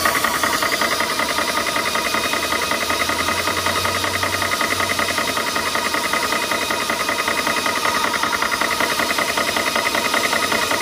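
Spritech ToAuto 4500 psi portable PCP air compressor running with its cooling fan, its pump going in a fast, even rhythm as it fills a PCP air rifle with high-pressure air.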